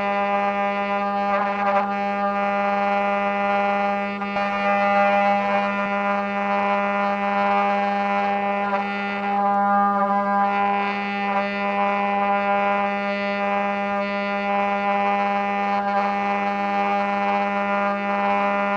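Five-axis CNC router running while it carves wood: a steady pitched whine that holds one note throughout, with cutting noise rising and falling over it.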